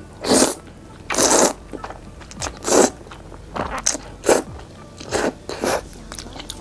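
Close-miked eating of Korean army stew: a series of about eight short, loud bites and chews, with the loudest near the start and around three seconds in.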